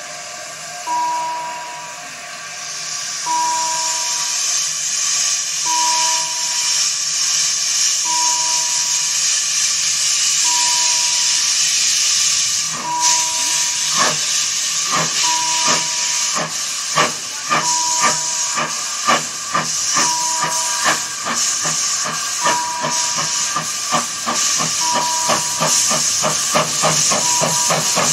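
Narrow-gauge steam locomotive hissing steam while standing, then setting off about halfway through: its exhaust chuffs start slow and quicken as the train pulls away. A short warning tone repeats about every two and a half seconds.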